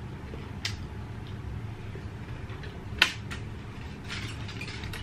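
Hand-eating sounds from roast duck with crispy skin: quiet chewing, a few sharp crunches or clicks with the loudest about three seconds in, and a light crinkle of aluminium foil near the end, over a steady low hum.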